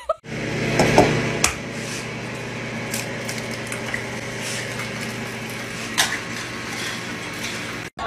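Egg frying in a non-stick pan: a steady sizzle with a low hum beneath it, broken by a few sharp taps and cracks of the eggshell.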